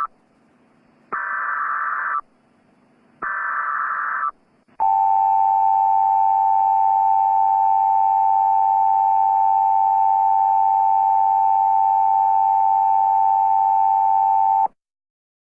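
Emergency Alert System audio. Two one-second bursts of the screeching SAME digital header tones, spaced about a second apart, are followed by the EAS two-tone attention signal. The attention signal holds steady for about ten seconds and then cuts off sharply.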